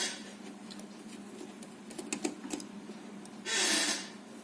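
Small plastic clicks and taps from handling the opened radio speaker-microphone's casing and circuit boards, with a short rustling scrape about three and a half seconds in.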